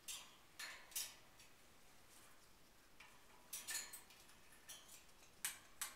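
Faint, scattered clicks and clinks, about eight of them with some in quick pairs, from a female Eclectus parrot at work in her metal wire cage.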